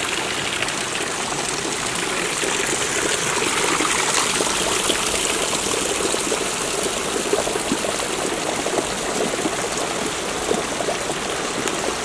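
Water running and trickling steadily down a mossy rock face, a continuous splashing rush.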